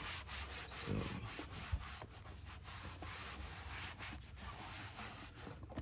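A cloth wiping and rubbing over a surface in quick, repeated strokes, cleaning up after the oil fill.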